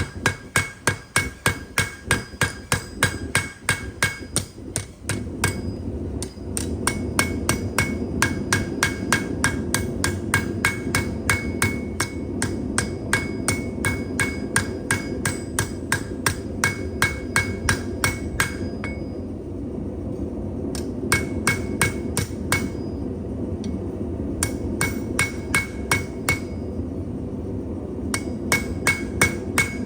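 Hand hammer striking hot steel on an anvil in a steady rhythm of about three blows a second, each blow leaving a short metallic ring, while the spoon blank is drawn out; the hammering stops briefly a couple of times. A steady low rushing noise runs underneath from a few seconds in.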